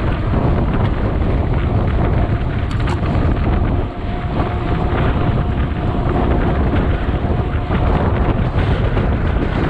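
Wind buffeting the microphone of a camera worn by a mountain biker riding at speed: a loud, steady low rushing, with a couple of faint clicks about three seconds in.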